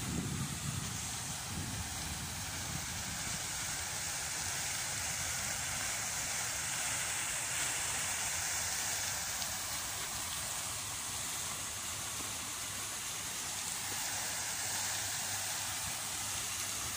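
Fountain jets splashing steadily into a shallow pool, a continuous even hiss of falling water.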